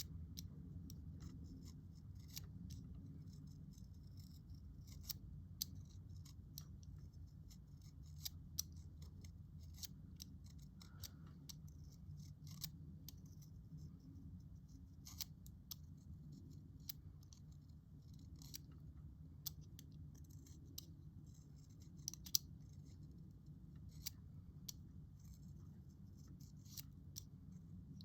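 Utility knife blade shaving wood from a pencil: faint, irregular scrapes and clicks, several a second, over a low steady hum.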